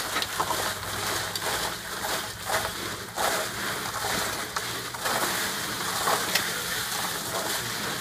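Ice cubes poured from a cooler into a plastic drum of water, a steady rush of clattering ice full of small clicks and splashes.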